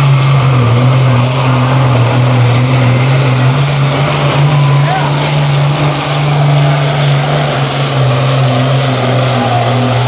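Pulling tractor's engine at full throttle, dragging the weight sled under heavy load: a loud, steady drone at an even pitch.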